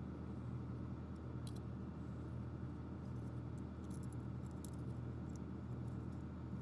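Steady low background hum, with a few faint light clicks: once about a second and a half in, then several between four and five seconds in.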